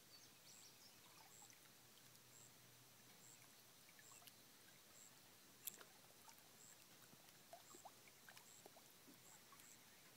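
Near silence: faint outdoor pond ambience with scattered small ticks and plinks, one sharper click about halfway through, and a faint high chirp repeating about once or twice a second.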